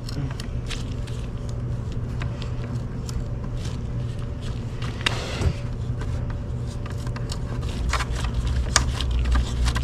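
Time-Sert tap being turned by hand to cut threads in a drilled hole, with scattered light clicks and scrapes from the tap and wrench, over a steady low hum.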